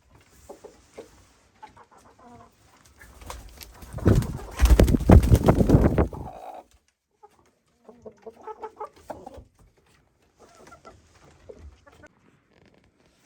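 Chickens clucking softly on and off. About four seconds in, a loud rumbling, crackling noise lasts for about two seconds and drowns them out.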